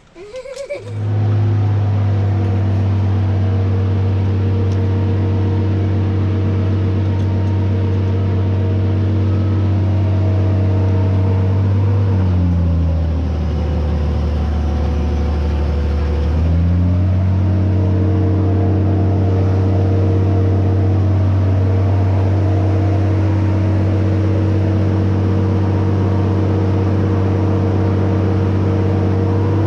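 Boatyard travel lift's engine running steadily. For a few seconds around the middle it slows to a lower pitch, then speeds back up.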